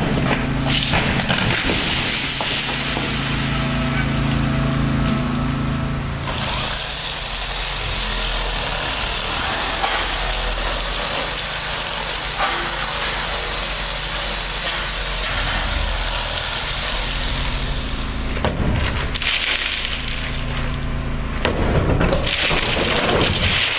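Demolition work with a machine running steadily. About six seconds in, a loud hissing rush sets in and lasts about twelve seconds before the machine noise returns.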